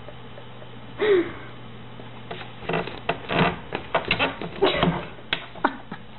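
A kitten scrambling and pouncing about: a quick run of scuffs, rustles and sharp taps, after a brief cry about a second in.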